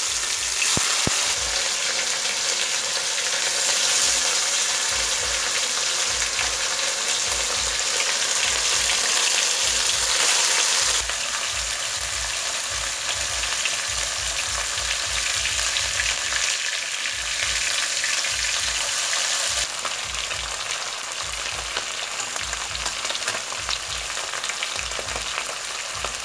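Turmeric-coated fish frying in hot oil in an aluminium kadai: a steady sizzle, with the knocks and scrapes of a metal spatula turning the fish now and then.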